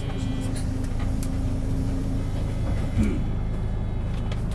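Isuzu PJ-LV234L (Erga) city bus running under way, heard from inside: a steady low diesel engine drone with a thin whine for the first couple of seconds and a single thump about three seconds in.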